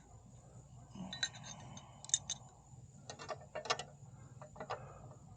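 Irregular metallic clicks and taps from hand work on a motorcycle's kickstand switch and its bracket, over a faint steady low hum.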